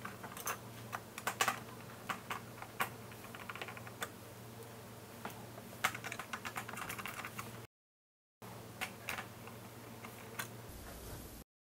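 Irregular small clicks and taps of a precision screwdriver and screws on the plastic housing of a Roborock S6/T6 robot vacuum as its screws are undone, with a few runs of quick ticking. The sound cuts out briefly twice.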